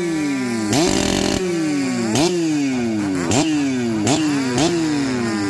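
Ported Stihl MS088 big-bore two-stroke chainsaw being revved with repeated throttle blips. The engine pitch snaps up and falls back about once a second, with one longer hold at high revs about a second in.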